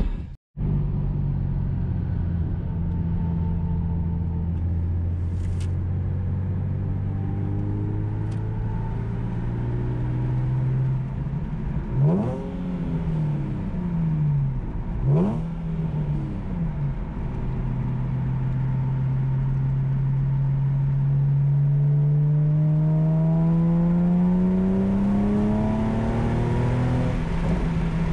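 Nissan 370Z's 3.7-litre V6 heard from inside the cabin through long tube headers, resonance test pipes and an aftermarket S-Line midpipe and muffler. The exhaust drones under light throttle, gives two quick rev blips that rise and fall about 12 and 15 seconds in, then pulls through a gear with a long, steadily rising note.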